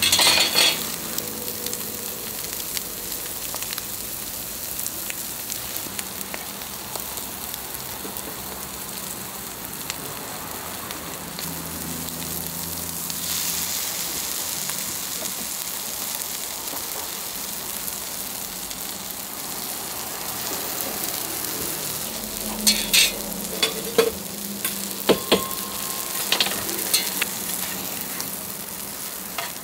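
Ham-and-egg patties and buttered bread sizzling steadily on a flat-top steel griddle. About three-quarters of the way through comes a cluster of sharp clacks from a metal spatula against the griddle.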